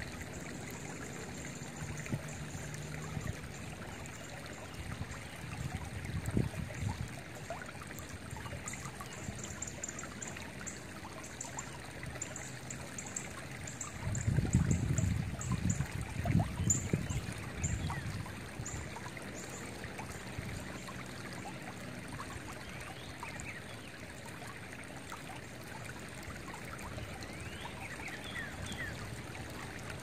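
Shallow creek water trickling and rippling steadily over rocks. Wind buffets the microphone in low rumbling gusts, a short one early and the loudest through the middle. High, quick bird chirps come in series through the middle, with a few faint whistled notes near the end.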